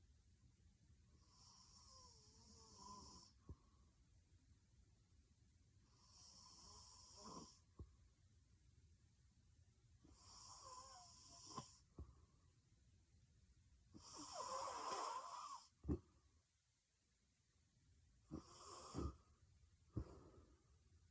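A young woman snoring in her sleep, faint: five snores about four seconds apart, each ending in a short click.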